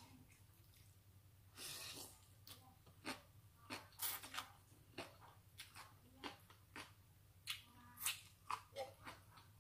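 A person slurping a mouthful of noodles about two seconds in, then chewing with many small wet mouth clicks and lip smacks.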